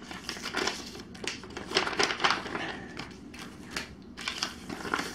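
Paper envelope being opened and handled: irregular crinkling and rustling of paper.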